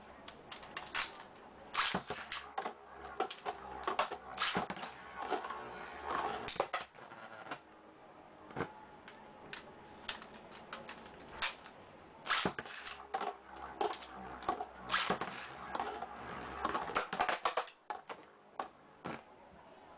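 Metal Fight Beyblade tops (Ray Aquario 90MF and Screw Unicorno DF105R2F) spinning and clashing in a plastic Attack Stadium. The sound is clusters of sharp clicks and knocks as the tops hit each other and the stadium walls, separated by brief lulls between rounds.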